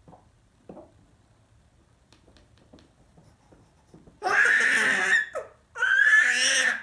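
A baby giving two loud, high-pitched squeals of about a second each, the first a little past halfway, after a few faint small noises.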